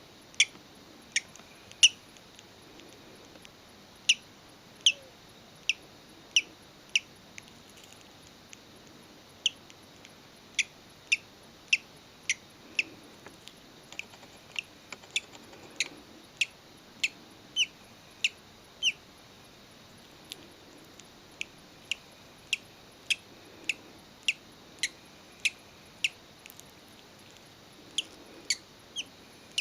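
Hatching bird chick peeping: short, high, shrill peeps, each falling in pitch, repeated irregularly up to about two a second.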